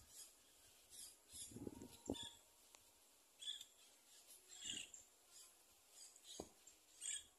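Faint, dull strikes of a long-handled mattock blade digging into grassy soil at the base of a fence post, a few blows a couple of seconds apart. Brief high bird chirps come in now and then.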